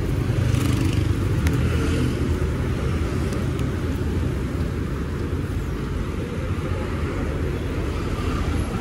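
Kawasaki D-Tracker 250's single-cylinder engine idling steadily while the bike stands still.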